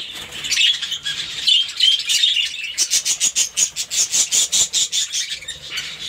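A colony of budgerigars chattering, a dense, steady run of rapid high chirps and warbles.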